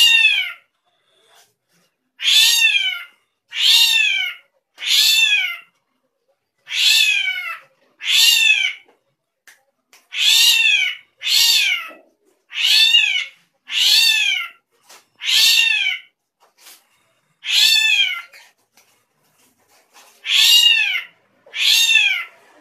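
A srigunting (drongo) giving a string of strange calls: about fourteen short arching notes, each rising a little and then falling, with many overtones, spaced roughly one to two seconds apart with longer gaps here and there.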